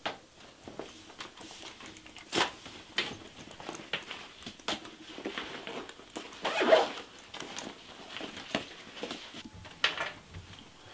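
Handling noises as toy pistols are gathered and packed into a fabric backpack: scattered clicks, knocks and rustling, with a zipper pulled for about a second around the middle.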